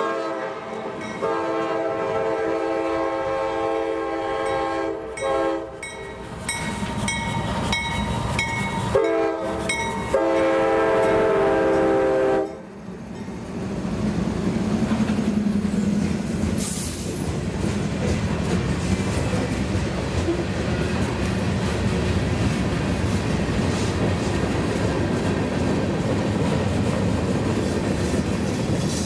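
A freight train's lead locomotive, a GE AC4400CW, sounds its air horn in several blasts, the last long and loudest, which ends about twelve seconds in. The diesel locomotives then pass close by with a low engine drone, followed by freight cars rolling past with a steady clickety-clack of wheels on the rails.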